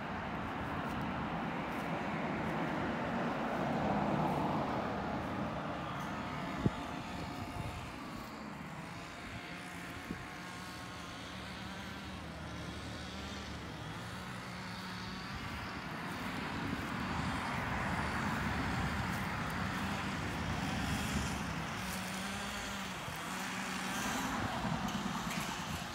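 Distant engine noise that swells and fades twice, with a low hum that shifts in pitch.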